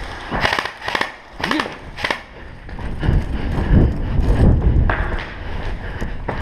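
An airsoft gun firing four single shots about half a second apart, each a sharp crack, followed by a low rumble of movement and handling noise.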